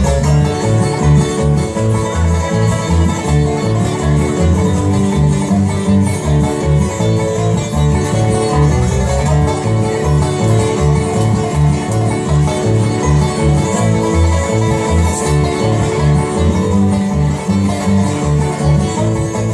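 Live bluegrass band playing an instrumental passage: rapid picked banjo and guitar over a steady pulse of low bass notes.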